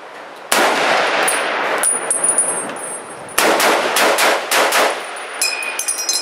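M1 Garand rifle in .30-06 firing: one heavy shot, then a rapid string of shots with echoing reports. Near the end comes a short ringing metallic ping, the empty en-bloc clip ejecting after the last round.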